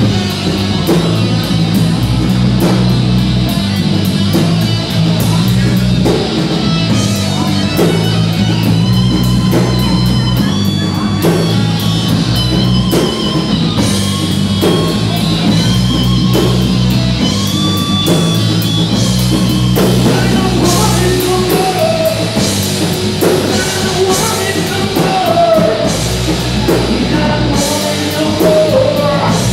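Live rock band playing loud, with electric guitars, bass guitar and drum kit, and a melodic line weaving over the top.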